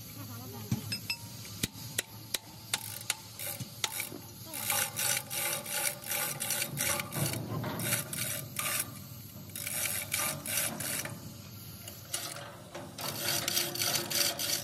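Hand chain hoist being pulled to lift a truck leaf spring pack: a few sharp metallic clinks, then the chain clatters through the hoist in fast, evenly spaced clicking runs, about halfway through and again near the end.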